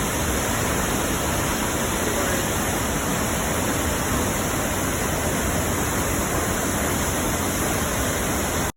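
Steady rushing of the Krimml Waterfalls' falling water, cutting off suddenly near the end.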